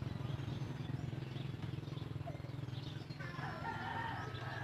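A rooster crowing once, one long call in the second half, over a steady low hum.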